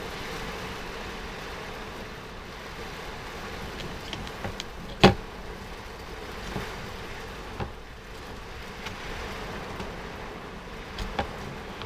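Heavy rain pouring onto a caravan roof, a steady hiss. A few clicks from the plastic window blind being handled cut through it, the loudest a sharp one about five seconds in.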